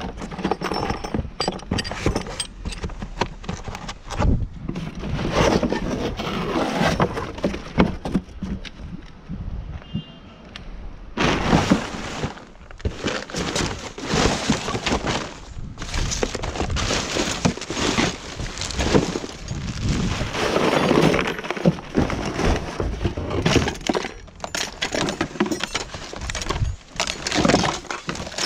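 Irregular clattering and clinking of hard objects knocking together.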